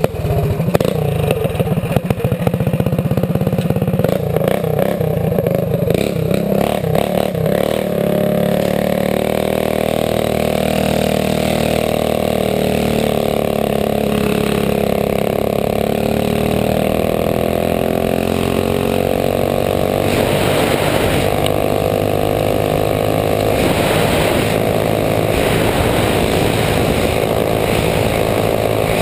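Minibike's small engine running steadily under way, its pitch drifting a little up and down. For the first several seconds there is clattering and wind noise over it.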